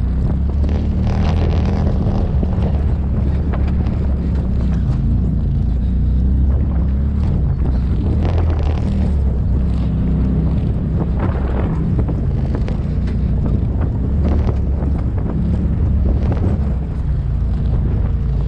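Off-road vehicle's engine running steadily as it drives slowly over a rough dirt trail, with scattered knocks and rattles from the bumps and wind buffeting the microphone.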